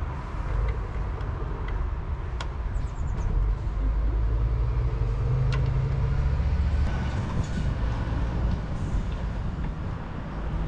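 Low, steady rumble of a vehicle engine running, swelling for a few seconds in the middle, with a few small clicks from handling the plastic lamp cluster and bulb.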